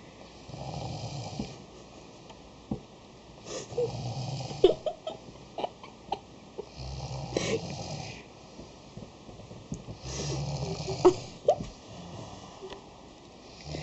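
A young child imitating snoring: rough snore sounds repeated about every three seconds, five in all. Short sharp clicks and squeaks fall in between, two of them the loudest moments.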